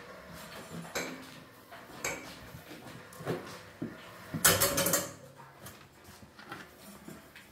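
Metal clinks and knocks of tools and parts being handled: a few separate sharp clicks, then a louder clattering about four and a half seconds in that lasts about half a second.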